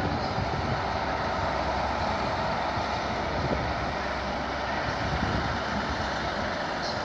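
First Great Western High Speed Train moving along the platform, its diesel power car running with a steady, even noise.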